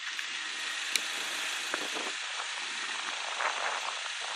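Steady outdoor background noise, an even hiss with no clear engine note, broken by one sharp click about a second in.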